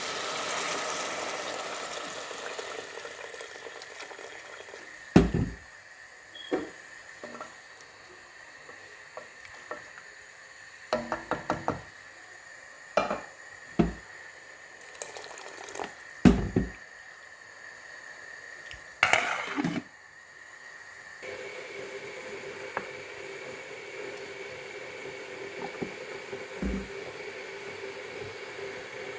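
Kitchen sounds: water running from a tap, with pots and utensils knocking and clattering about a dozen times, mostly between about five and twenty seconds in.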